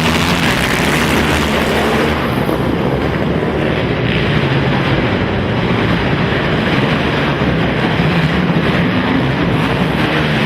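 Several racing ATV engines running and revving at once, a loud, continuous, blended din.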